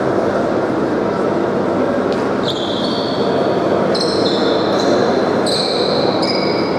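Steady noise of an indoor sports hall. From about two and a half seconds in, high-pitched squeaks sound over it several times, some drawn out and overlapping.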